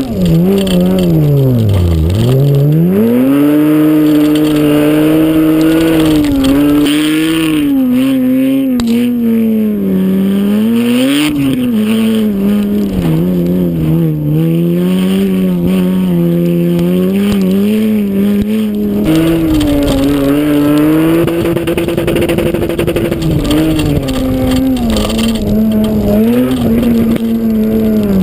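Mitsubishi Magna V6 engine at racing revs, its note climbing and dropping again and again as the driver accelerates, lifts and changes gear, with a deep dip about two seconds in.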